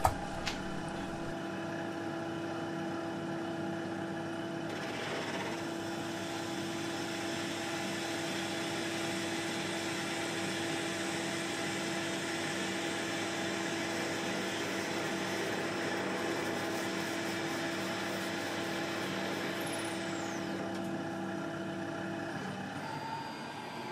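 Tormach 8L CNC lathe spindle running with a steady whine while a cutoff tool parts off a 6061 aluminum standoff. The cutting adds a hiss from about five seconds in that fades near the end. Shortly before the end the spindle's tone stops and a different rising tone comes in.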